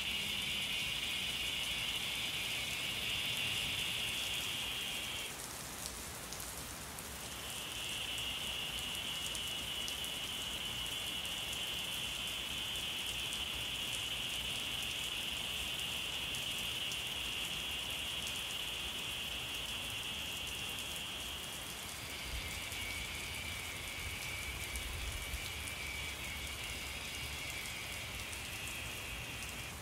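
Steady, high-pitched insect drone in the forest. It stops for about two seconds around six seconds in, then resumes, and settles slightly lower in pitch near the end. A faint, fine patter runs underneath.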